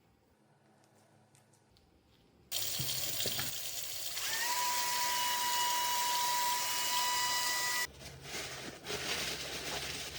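Water rushing from a tap, with a steady whistling tone joining partway through. The flow starts abruptly after a quiet opening, cuts off sharply, and returns in shorter spurts near the end.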